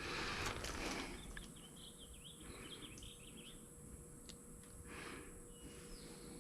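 Birds chirping in the background of a quiet outdoor scene, after a brief hiss in the first second and with a few faint clicks.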